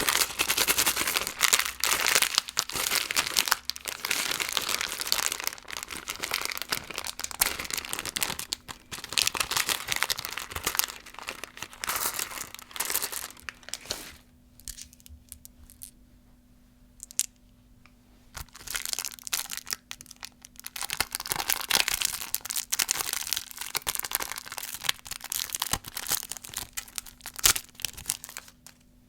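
Plastic candy wrappers crinkling as candy is unwrapped by hand. The sound comes in two long stretches, with a pause of a few seconds about halfway.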